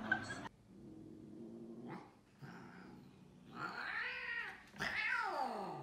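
Cats growling and yowling during a scuffle: a low, steady growl with drawn-out yowls that rise and fall, about two and a half, four and five seconds in. The last yowl slides down in pitch.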